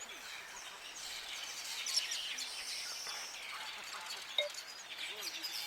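Many small birds chirping and trilling in a steady outdoor chorus, with a couple of brief louder notes.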